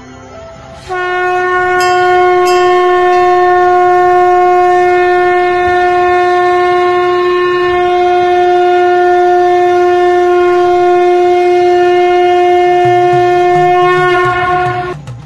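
A conch shell (shankha) blown in one long, steady blast at a single pitch. It starts about a second in and lasts about thirteen seconds before cutting off.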